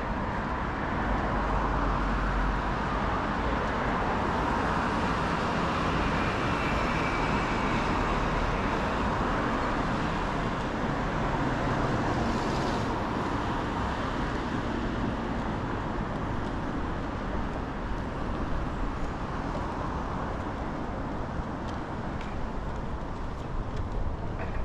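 Steady road traffic on a busy city street: engines and tyres of passing cars and buses, a little louder in the first half as vehicles go by.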